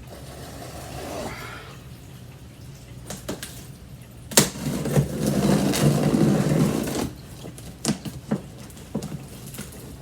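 Cardboard shipping box being opened by hand: a sharp snap about four seconds in, then a few seconds of rustling and scraping, with scattered short knocks near the end.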